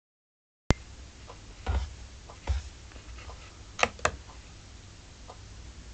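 A sharp click as the recording starts, then faint room noise with a low hum, a couple of soft thumps and a few scattered sharp clicks, typical of handling noise.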